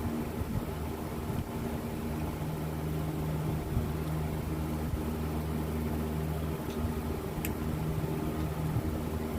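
A machine running steadily with a low hum made of several steady tones, and a faint click about seven and a half seconds in.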